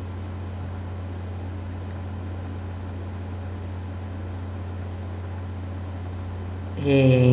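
Steady low hum with faint hiss, unchanging in level. A voice comes in near the end.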